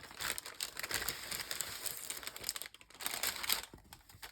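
Crinkling and rustling of packaging as items are handled and lifted out of a craft kit box, fading near the end.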